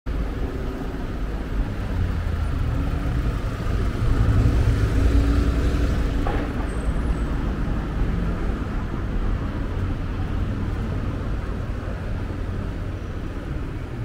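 Elizabeth line train running: a steady low rumble with faint whining tones above it, swelling a little about four to six seconds in, with a single click about six seconds in.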